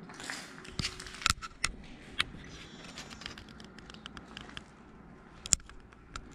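Crunching footsteps on debris and broken glass: scattered sharp clicks and cracks, the loudest about five and a half seconds in.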